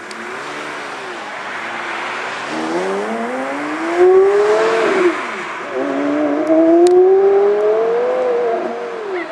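Lamborghini Gallardo V10 accelerating hard, its pitch climbing. It upshifts about five seconds in with a sudden dip, pulls up through the next gear, then eases off near the end.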